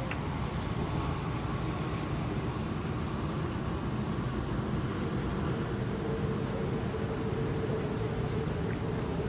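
Crickets chirring in a steady high-pitched drone over a constant low background noise.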